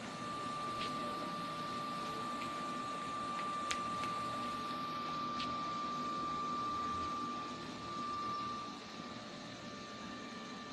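Electric air blower for an inflatable running with a steady high whine over a constant rush of air; the whine drops away about nine seconds in.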